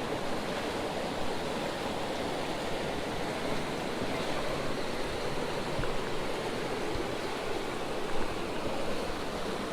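Swift mountain creek rushing steadily over rocks.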